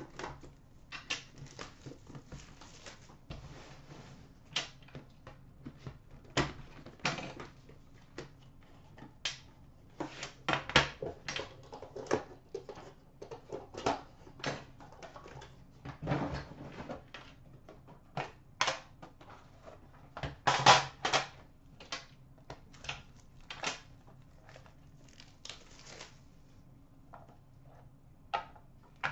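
Hands handling trading-card boxes and a metal card tin: irregular clicks, knocks and rustles of packaging being opened, moved and set down, coming in clusters.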